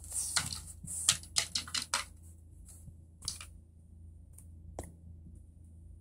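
Small plastic building bricks clicking and rattling as they are handled and pressed into place: a quick run of clicks through the first two seconds, then a few scattered clicks.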